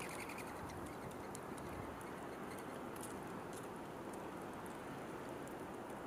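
Outdoor ambience: a steady, even background noise with faint, scattered high-pitched ticks.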